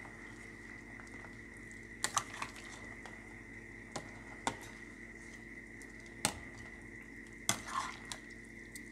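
Metal ladle stirring soup in a stainless steel pot, clinking sharply against the pot several times, over a steady hum.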